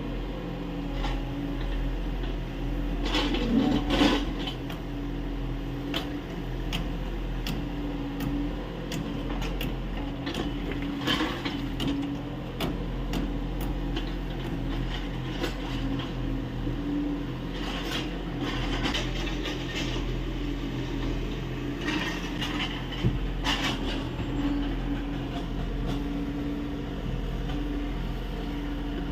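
Kubota U30 mini excavator's diesel engine running steadily under load, its hum swelling and dropping as the hydraulics work. The bucket scrapes and clanks against earth a few times while digging.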